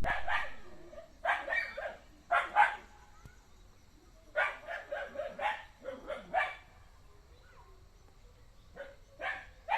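An animal giving short, sharp barking calls in clusters of two to five, with quiet pauses between the bursts.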